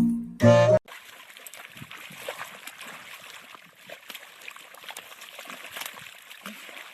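A burst of music cuts off within the first second. Then comes steady splashing and trickling water with irregular small splatters.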